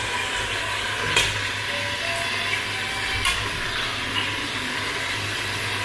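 Seasoned oxtail pieces sizzling as they brown in a pressure cooker pot while being flipped, with a couple of short sharp clicks as pieces are turned over.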